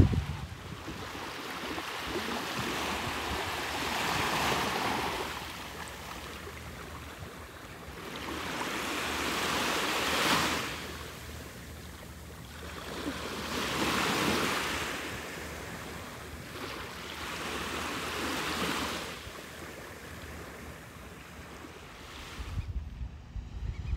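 Small waves breaking and washing up the sand, each swell rising and falling away about every four to five seconds. Near the end, wind buffets the microphone.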